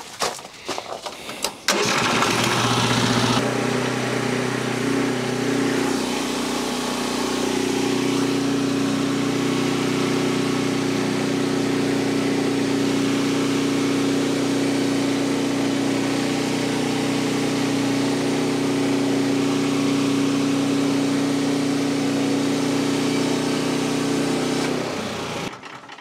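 Frontier portable band sawmill's 10 hp recoil-start Briggs & Stratton engine started and catching about two seconds in, then running steadily under load as the band blade saws through a log. The sound cuts off near the end.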